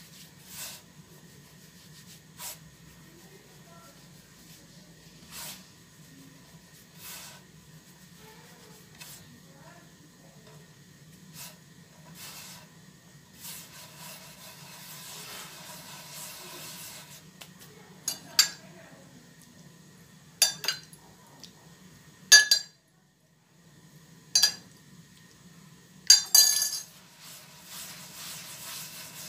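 Hands rolling and rubbing moistened semolina into small grains against a clay dish: a soft scraping rustle. Several sharp clinks against the dish come in the second half.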